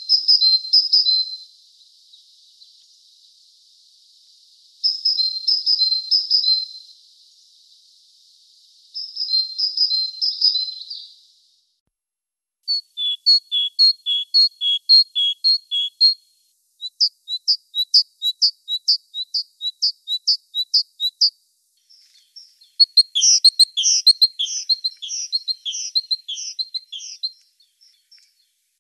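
Great tit singing: three short bursts of high notes a few seconds apart, then long runs of quick, evenly repeated high notes, several a second, broken by brief pauses.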